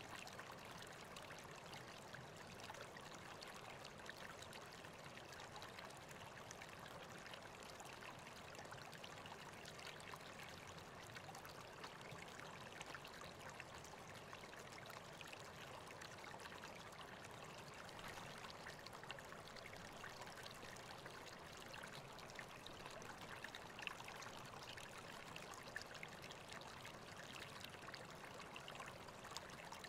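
River water running steadily, a faint even rush of flowing water.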